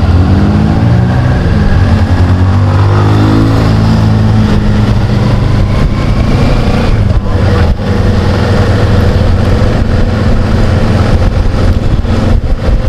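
Kawasaki Versys 650 parallel-twin engine running under way, its revs rising and falling for the first few seconds, then holding steadier. Wind rushes over the rider's microphone throughout.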